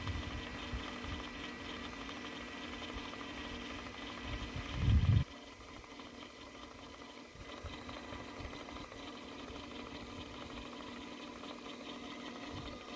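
The sun tracker's 12-volt brushless motor running its telescopic actuator arm, driving the frame upward with a steady hum and a thin high whine. About five seconds in there is a brief loud low rumble, then the whine cuts off and a fainter hum remains.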